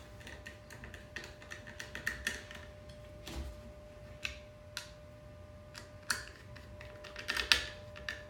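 Small screwdriver turning screws into a hard polymer holster and its mount, making irregular light clicks and ticks of metal on plastic, with sharper clacks about six and seven and a half seconds in.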